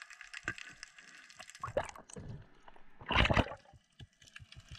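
Underwater sound in a shallow rocky reef: a fine crackle of faint clicks, with a short, loud gurgling rush of water or bubbles about three seconds in.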